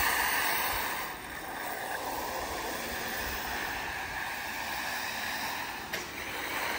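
Arrma Typhon 6S brushless electric RC buggies racing on dirt: a steady rush of tyres on dirt with a faint motor whine, loudest in the first second and then dropping off as the cars pull away.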